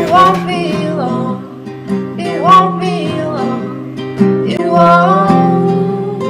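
Soundtrack song: strummed acoustic guitar with melody notes that bend in pitch, in a stretch without sung words.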